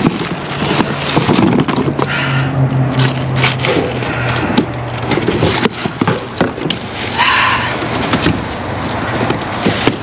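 Plastic bags and bubble wrap crinkling and rustling as trash is rummaged through by hand and with a grabber, with heavy breathing every few seconds. A low steady hum runs through the first half.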